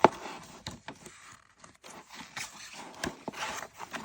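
Rustling and scattered clicks of handling noise, with a sharp, loud click right at the start.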